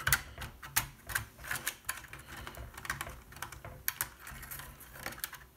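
Irregular light clicks and taps of a circuit board and small plastic parts being handled and pressed into place in the open plastic housing of a Roborock S7 robot vacuum.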